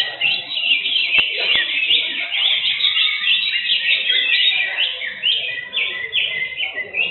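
Caged greater green leafbirds (cucak hijau) singing: a dense, overlapping run of quick high chirps and whistles that never lets up.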